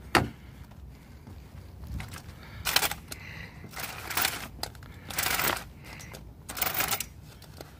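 A car door latch clicks open, followed by several short rustling, scraping bursts as a person shifts a walker and their clothing at the open door.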